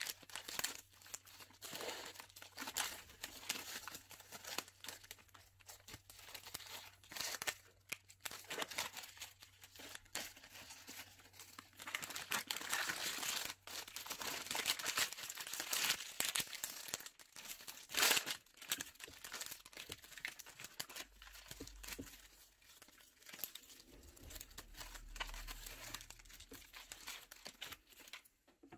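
Crinkling of a red metallic foil gift bag as gloved hands gather its neck and tie it shut with gold ribbon, in uneven spells of rustling and crackling, with one sharper crackle about eighteen seconds in.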